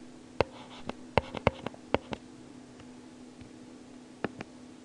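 Pen stylus tapping and clicking on a tablet screen while handwriting letters. There is a quick run of sharp ticks over about two seconds, then two more near the end, over a faint steady hum.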